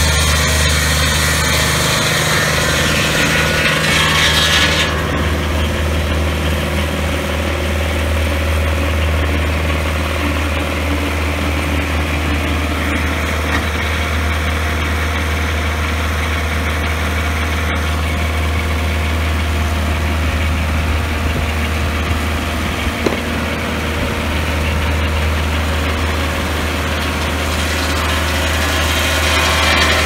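Portable swingblade sawmill's engine running steadily. For the first five seconds its circular blade is also cutting through a log, and that cutting noise stops sharply; the engine keeps running after it.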